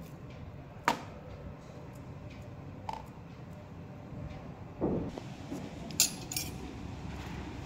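A few light clinks and knocks on a steel plate while soft chhana patties are shaped by hand on it: a sharp clink about a second in, a fainter one about three seconds in, a duller knock near five seconds, and two quick clinks around six seconds. A steady low hum lies under them.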